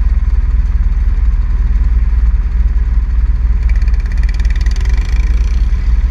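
Quad engines idle with a steady low hum. About two-thirds of the way through, a brighter, buzzier engine note joins in as one quad pulls away.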